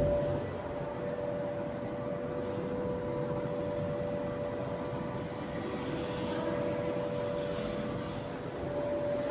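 A steady machine hum holding two constant pitches over a low rumble, with a brief knock at the very start.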